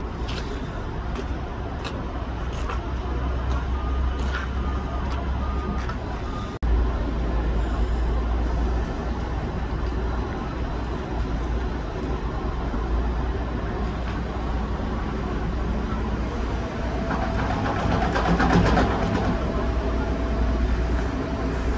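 Heavy construction machinery engine running steadily, a low rumble. It drops out for an instant about six and a half seconds in, then carries on slightly louder.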